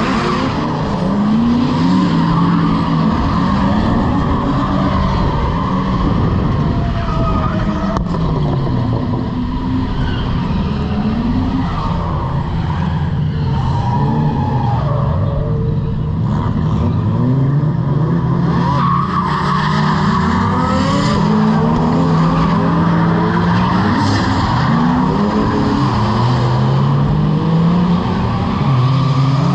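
Drift cars sliding sideways around the track, engines revving up and down again and again while the tyres skid and spin in smoke.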